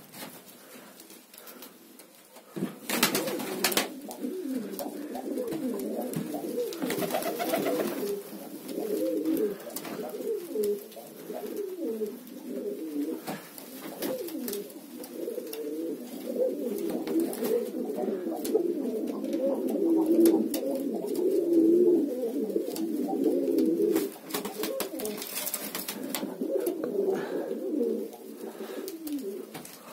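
A flock of domestic pigeons cooing, many calls overlapping, from about two and a half seconds in until near the end, with a few short rustling noises around three seconds and again past twenty-five seconds.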